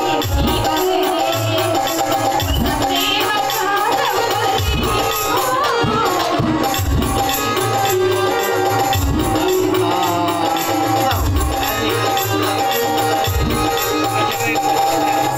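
Live stage music for a folk play: drum beats under a steady held tone, with a wavering sung melody.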